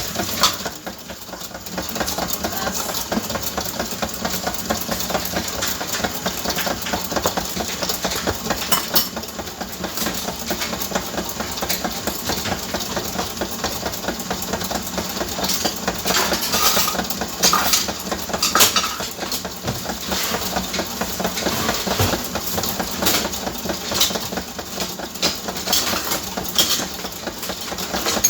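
Electric mixer running steadily, beating cake batter, with a brief dip in level about a second in and a few sharper clicks around the middle.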